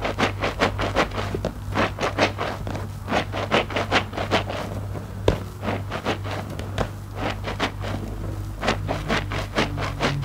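IKEA mesh bath loofahs squeezed by hand in a basin of thick soapy foam: wet squelching of lather and water in quick runs of squeezes, sparser for a stretch just past the middle, over a steady low hum.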